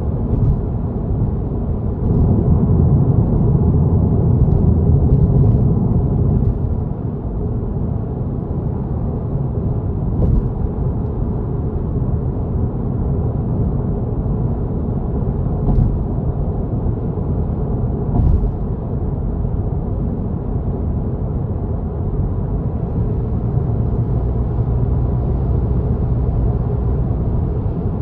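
Steady low rumble of a car driving at speed, tyre and engine noise, louder for a few seconds near the start, with a few brief knocks along the way.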